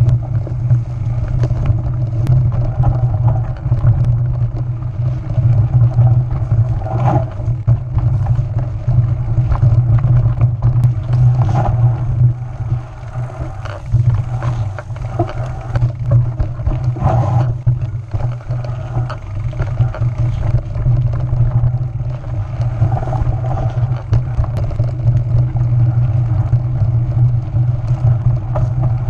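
Mountain bike riding over a rough dirt singletrack: wind rumbling on the bike-mounted camera's microphone, with scattered knocks and rattles from bumps in the trail.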